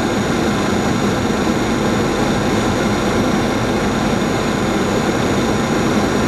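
Boeing 737-700 flight-deck noise on final approach: a loud, steady rush of airflow and engine sound, with faint high steady tones.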